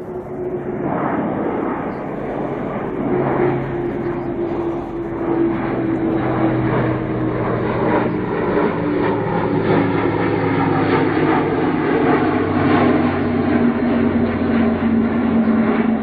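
Airbus A400M Atlas C1 in flight, its four TP400 turboprops and eight-bladed propellers making a steady hum whose pitch slowly falls while it grows louder.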